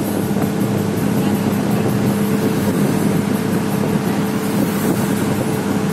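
Truck engine running steadily at road speed, a constant low hum, mixed with road and wind noise from the moving vehicle.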